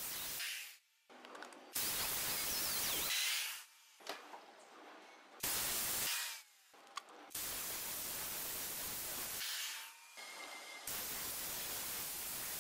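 Ryobi PE1600 single-action rotary polisher running with a sponge buff on a car's painted panel, a steady hiss that cuts in and out abruptly several times, with quieter gaps between.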